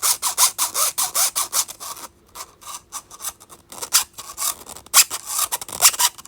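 A spiral fidget toy being pushed in and out of itself, its nested layers rasping against each other in quick scraping strokes, several a second at first, then sparser after a short pause. A really weird noise.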